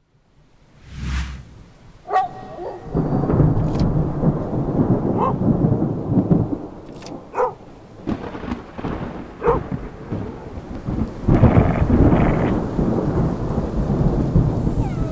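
Thunderstorm sounds: rain with low rolling thunder that grows louder about eleven seconds in, broken by several sharp cracks.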